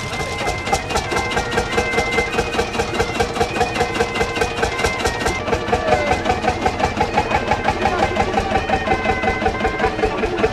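Belt-driven threshing machine running, a steady mechanical hum with a regular knocking about four times a second.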